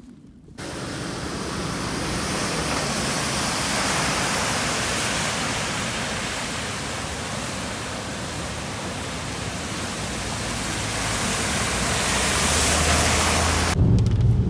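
Loud, steady rush of water, starting suddenly about half a second in. Near the end it gives way to a low steady hum.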